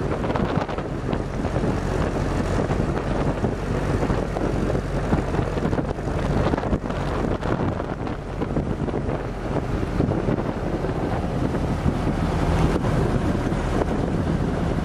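WWII Jeep's four-cylinder engine running steadily while driving, under heavy wind buffeting on the microphone.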